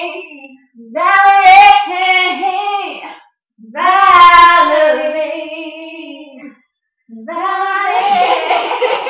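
Two young women singing unaccompanied, in three long sung phrases with short silences between them; the last phrase is rougher.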